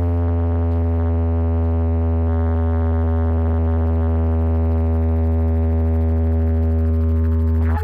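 A loud, steady electronic synthesizer drone played through a large DJ sound system: one deep bass note with a stack of overtones, held without a break.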